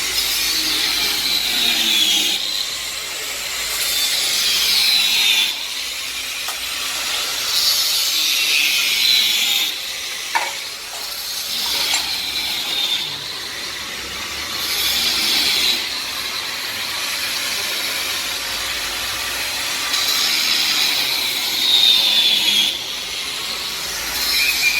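Four-side wood shaving (planing) machine running, its cutters shaving wooden hanger plates fed through one after another: a loud hissing cut with a falling whine every three to five seconds over the steady run of the machine.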